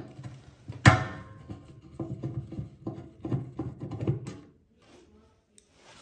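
Phillips screwdriver undoing a turntable motor's mounting screw on the microwave's sheet-metal base: a sharp metal knock about a second in, then a run of short clicks and knocks that stops about four seconds in.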